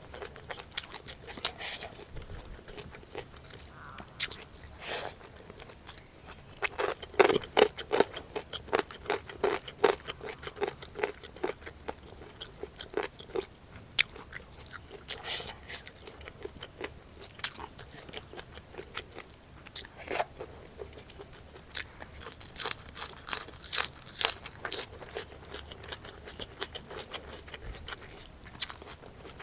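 Close-miked eating: a person biting and chewing crunchy food. Dense runs of sharp crunches come about seven seconds in and again around twenty-two seconds in, with softer chewing and mouth clicks between.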